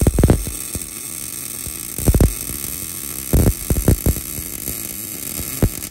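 Wire-feed welder arc on steel, a steady crackling buzz broken by irregular louder pops and sputters, the heaviest about two seconds in and again near four seconds.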